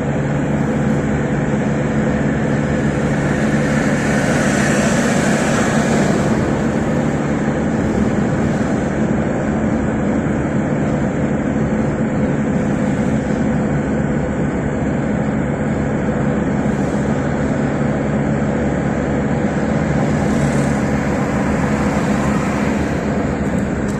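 Steady engine hum with road-like noise, swelling briefly twice.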